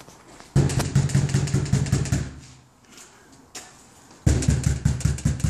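Rapid knocking on an apartment door, many quick blows a second, in two rounds with a pause between.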